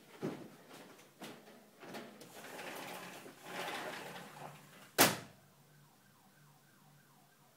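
A dog clambering up and over a fence: knocks and scrabbling against the fence, then one sharp, loud bang about five seconds in.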